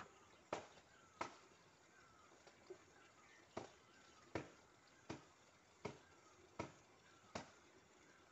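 Faint, sharp knocks repeating fairly evenly about every three-quarters of a second, about ten in all, with faint short bird chirps between them.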